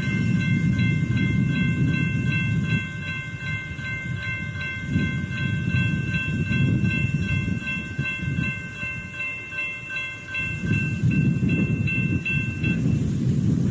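Railroad grade-crossing warning bell ringing rapidly and steadily, stopping near the end, over a low rumble.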